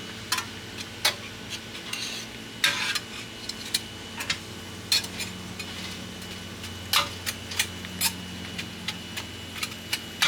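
Metal spatulas clacking and scraping against an iron teppan griddle as organ meat is turned, with irregular sharp clicks over a steady sizzle.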